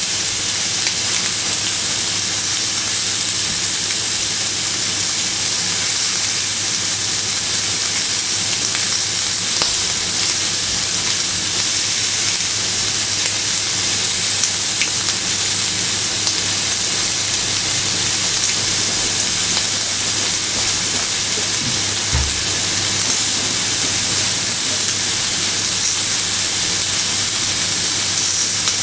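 Fillet steaks searing in butter on a very hot griddle pan, a steady hiss of frying fat. A short low thump comes about two-thirds of the way through.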